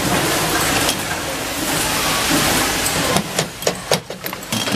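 Steady, loud hissing din of hinge-assembly machinery. For the last second and a half it gives way to a quick run of sharp metallic clicks and clacks.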